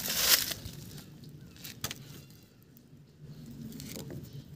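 Plastic handling noise: a blue corrugated plastic hose is twisted and forced onto an orange plastic fitting, with a scraping rush at the start and a few short clicks and creaks. The hose is a tight fit that will not slide on without being heated.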